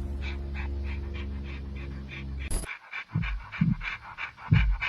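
Dog panting rhythmically, about three breaths a second, over a low steady drone that cuts off suddenly about two and a half seconds in. After the cut the panting goes on, with heavy low pulses between some breaths.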